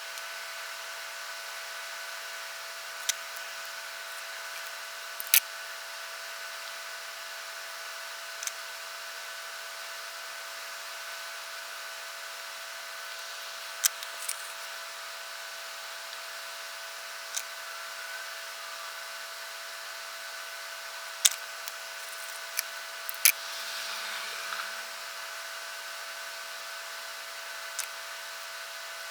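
Scattered sharp clicks and taps of small hand tools and parts handled at a workbench, about a dozen spread unevenly, over a steady electrical hum. A short soft rustle comes a little after the middle.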